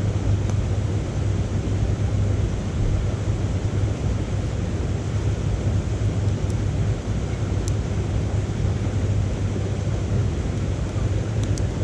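A few faint crackles from wood burning in a small titanium wood stove, over a steady low rumbling noise that is the loudest sound.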